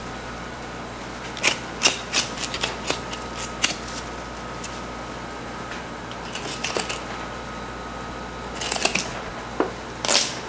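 Meat being cut by hand: clusters of sharp snipping clicks in four short bursts, over the steady hum of a ventilation fan.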